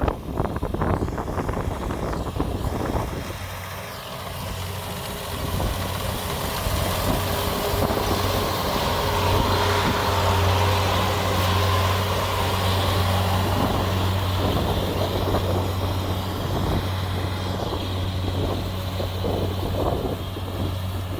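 Combine harvester's diesel engine running at a steady pitch, coming up louder a few seconds in, with wind noise on the microphone at the start.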